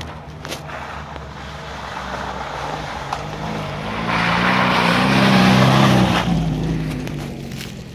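Lada Niva off-roader driving through deep mud and passing close by: the engine is revved harder and is loudest about five to six seconds in, with a rushing noise of the tyres churning and spraying mud, then it fades as the car moves away.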